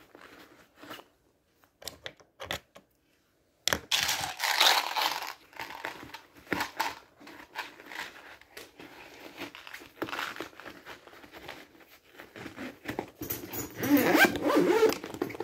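Close handling noise: rustling and scraping with many short clicks. Only scattered clicks until about four seconds in, then steady rustling that grows louder again near the end.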